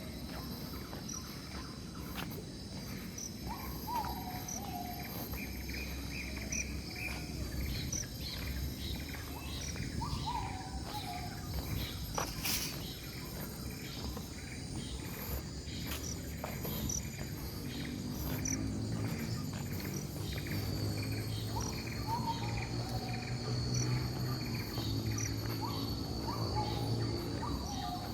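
Outdoor nature ambience: insects trill and tick steadily, and a bird calls every several seconds with a short falling whistle. A low hum joins in during the second half.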